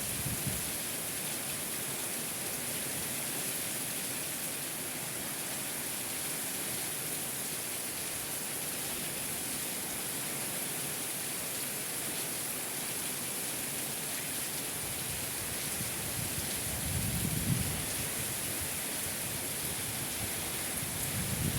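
Steady heavy rain with wind. A low rumble swells about three-quarters of the way through and again at the end.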